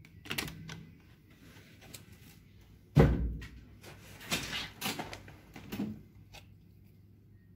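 Hotel room door being opened: clicks of the handle and lock, then the door shutting with a thud about three seconds in, followed by a few lighter knocks and rustles.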